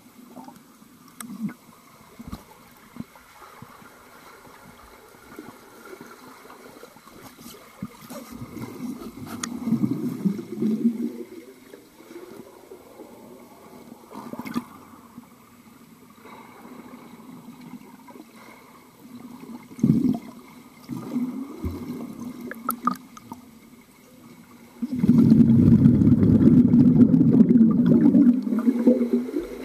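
Swimming pool heard underwater: the muffled splashing and bubbling of a swimmer's freestyle strokes, with swells as strokes pass. About 25 seconds in it turns into loud churning of bubbles as the swimmer goes right past the microphone, easing off near the end.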